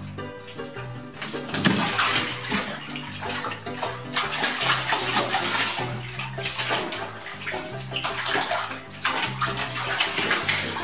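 A cat splashing and thrashing in a bathtub full of water and scrambling to climb out; the splashing starts suddenly about a second and a half in and goes on in uneven surges.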